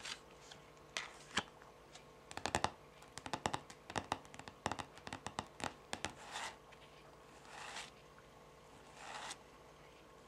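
Long fingernails tapping and clicking on the top of a stack of tarot cards, in quick irregular runs, then three slower scratching strokes across the cards in the second half.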